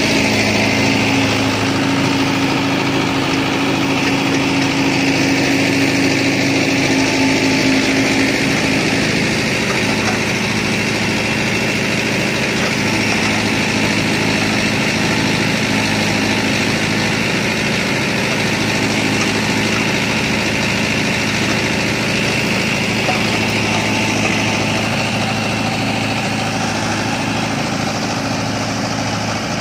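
Mahindra Yuvo 575 tractor's diesel engine running steadily while it powers a Bull Agri backhoe attachment digging soil.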